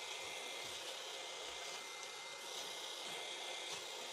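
Steady rushing hiss of blown air, with a faint thin steady whine above it.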